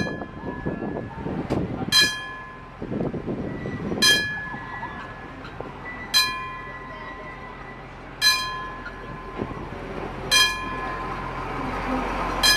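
Level-crossing warning bell striking slowly, one ringing strike about every two seconds, signalling an approaching train. Near the end a steady rumble rises as the park's miniature train pulls up to the crossing.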